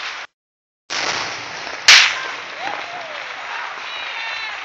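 New Year's fireworks: a steady hiss and crackle of fireworks going off, with one sharp, loud bang about two seconds in and voices calling out near the end. The sound drops out completely for a moment just after the start.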